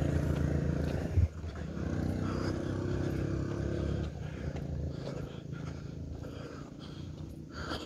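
Motorbike engine running as it rides past on the road, with a short knock about a second in. The engine fades away about four seconds in.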